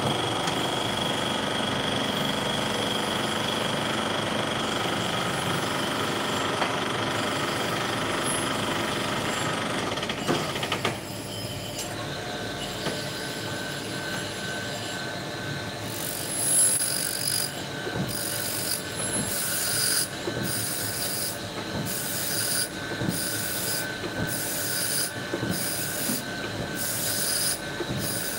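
Tool and cutter grinder running with a freshly fitted grinding wheel being dressed: a steady whine whose tone changes about eleven seconds in. In the second half a high hiss comes and goes about once a second as the dresser passes across the wheel face.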